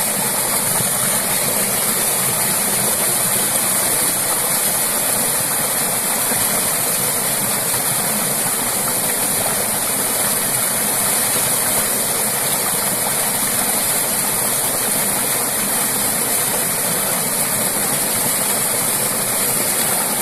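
Thick jet of water gushing steadily from a pipe outlet and splashing into a pool below, a constant rushing splash.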